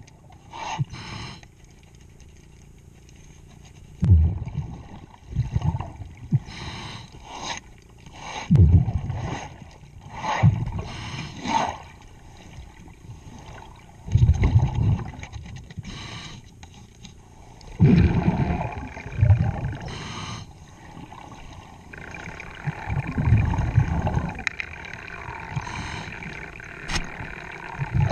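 Scuba diver breathing through a regulator underwater: hissing inhalations alternating with deep, rumbling bursts of exhaled bubbles, one every second or two.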